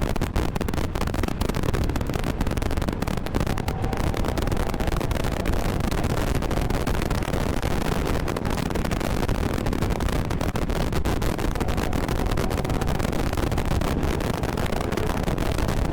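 Mazda MX-5 (ND) being driven hard on track: a steady mix of engine, road and wind noise, with wind buffeting crackling on the camera microphone.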